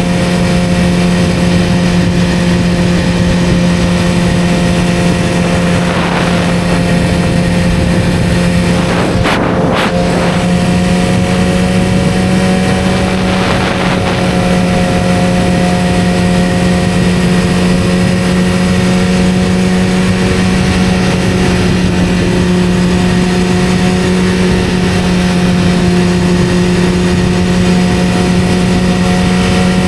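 1991 Kawasaki ZZR-400's inline-four engine running steadily at a cruise, with a short break in its note about nine and a half seconds in, then slowly rising in pitch.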